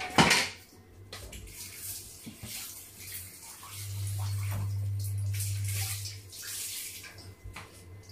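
Kitchen tap running into the sink, the water splashing on and off, after a sharp knock right at the start. A low steady hum joins for about two seconds in the middle.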